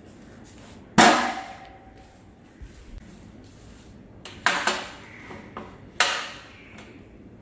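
Stainless steel food containers on a tray being set down and knocked against a wooden side table: a sharp clunk about a second in, a quick double clunk around four and a half seconds, and another near six seconds, each ringing briefly.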